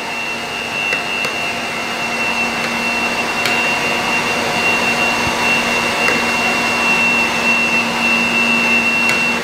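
Steady machine whir, like an electric motor running, with a high whine over a low hum; it cuts off suddenly at the end. A few faint clicks sound over it.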